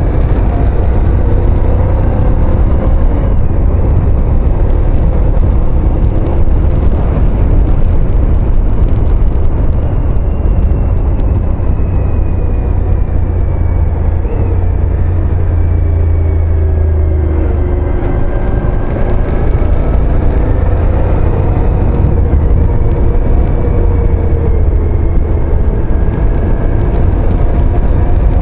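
Motorcycle riding at road speed, heavy wind buffeting on the microphone over the engine, whose pitch rises and falls slowly as the bike takes the bends.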